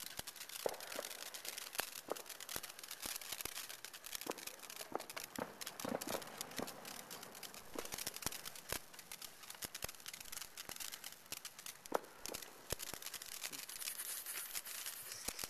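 Ground fountain firework spraying sparks: a steady hiss full of dense crackling and small sharp pops, with a louder pop about twelve seconds in.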